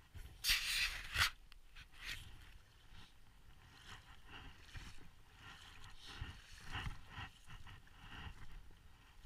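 Footsteps pushing through a stand of dry reeds, the stems rustling and brushing past. A loud burst of rustling comes in the first second, then softer, uneven steps.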